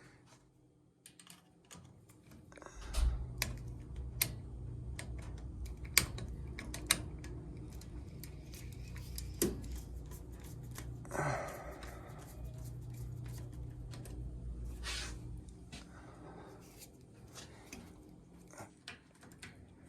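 Scattered clicks and taps of hands and tools working on a boiler zone valve, over a low steady hum that starts about three seconds in and fades out near the end.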